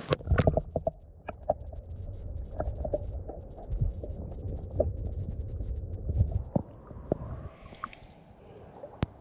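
A GoPro dipped into lake water, heard through its own microphone: a few sharp knocks and splashes as it goes under, then a muffled low rumble with scattered clicks and knocks while it is submerged. The higher sounds come back near the end as it breaks the surface.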